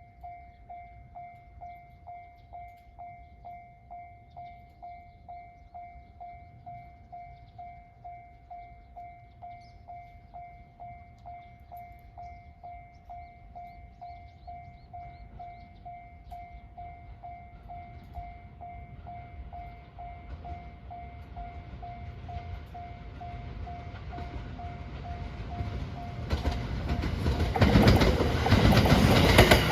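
Railway level-crossing alarm ringing one repeated tone, just under two strikes a second, while a train approaches. The train's rumble grows over the last ten seconds, and it passes loud and close near the end, drowning out the alarm.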